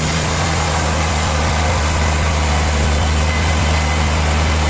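Heavy machinery running steadily: a loud, even low engine-like drone with a broad mechanical hiss over it.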